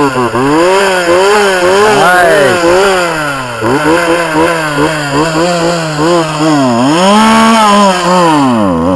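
Poulan two-stroke chainsaw, its chain removed, running with the throttle blipped again and again, so the revs swing up and down about once a second. It revs highest about seven seconds in, then the revs sag near the end.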